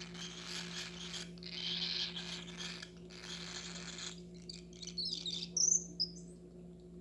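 Baby cockatiel making raspy, hissing food-begging calls while being hand-fed, then a short high chirp about five and a half seconds in.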